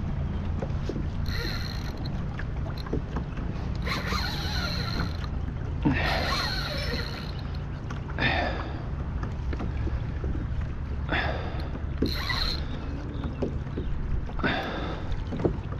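Spinning reel and line working against a big hooked snook from a kayak: short rushes of reel and drag noise every one to three seconds over a steady low rumble.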